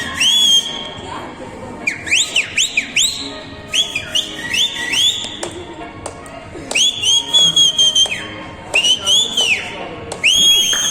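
Several people whistling loudly in celebration: short whistles that sweep sharply up and hold, often overlapping, coming in bunches every second or two.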